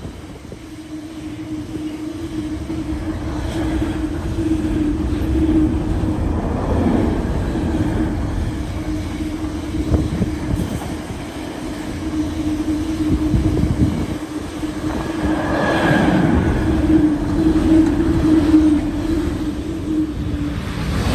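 Container freight train's wagons rolling past: a steady rumble of wheels on the rails with a constant low hum, swelling briefly twice.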